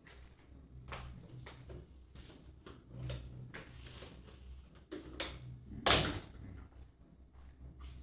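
Scattered knocks and clatter of objects being handled, with one sharper, louder knock about six seconds in.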